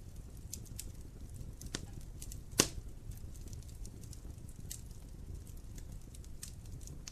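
Wood fire crackling in a fireplace: scattered irregular pops and snaps over a low steady rumble, with one loud snap about two and a half seconds in.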